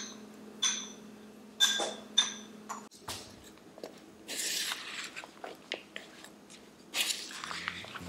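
A Greek salad of chopped vegetables being mixed with a wooden spoon in a large bowl. First a few sharp clinks against the bowl, each with a short ring. Then the wet rustle and scrape of the chopped pieces being tossed and stirred, in two longer bursts.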